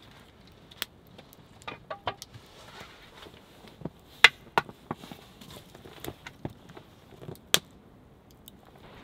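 Irregular sharp wooden knocks and clicks as sticks are handled and fitted together on a stick-built cooking crane. The loudest knocks come about four seconds in and again near the end.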